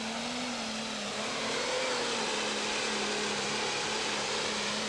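An 1800-horsepower Pro Stock pulling tractor's diesel engine running flat out under load as it drags a weight-transfer sled down the track. It is a steady drone that climbs a little in pitch about a second and a half in, then holds.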